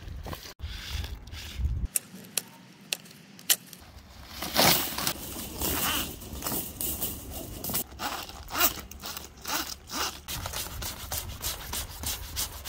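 Plastic conduit and electrical cable rubbing and scraping as they are dragged over gravel and grass and a cable is worked into corrugated plastic conduit, in a run of short, uneven scrapes.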